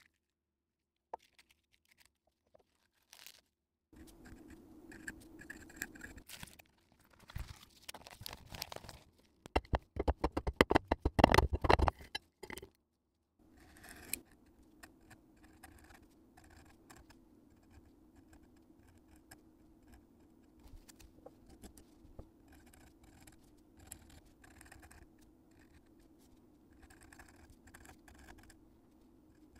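Steel-nib dip pen scratching across a paper index card as a recipe is written out by hand, over a faint steady hum. Before the writing, about ten seconds in, comes a short run of loud rapid clicks.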